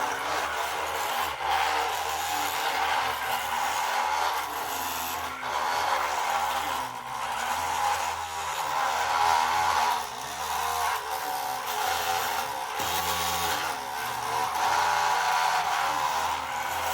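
Small electric motors and gearboxes of radio-controlled construction models running continuously, their pitch wavering up and down as the throttle changes.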